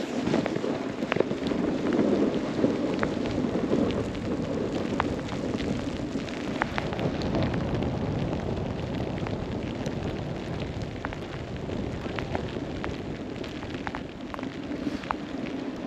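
Snowboard sliding and carving over snow, a steady rushing scrape mixed with wind on the microphone, with scattered sharp ticks throughout.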